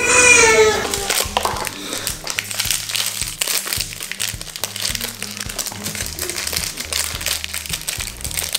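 A man's loud drawn-out cry, falling in pitch over about a second, then the crinkling and tearing of foil blind-box bags being opened by hand, over background music with a steady beat.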